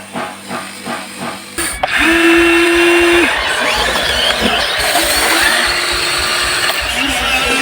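Huina 1593 RC excavator's electric motors and gearboxes whining as it works, starting suddenly about one and a half seconds in, the pitch of the whine stepping up and down as different movements run. Before that, a short stretch of music with a steady beat.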